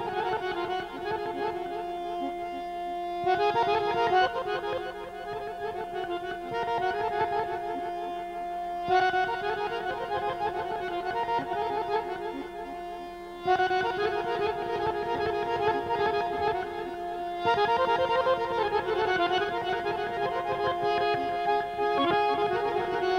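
Azerbaijani garmon (button accordion) playing a folk melody over a steady held note, in phrases that swell louder every few seconds.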